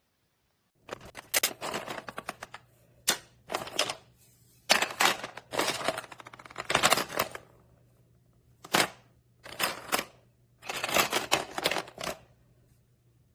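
Plastic toy parts and packaging being handled: repeated bursts of rapid clicking and rattling, a dozen or so over about eleven seconds.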